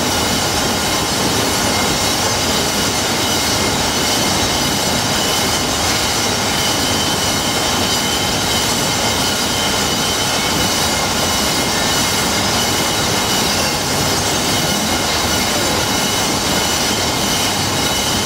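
Loud, steady machinery noise in a crystal factory, a constant roar with a faint high whine running through it.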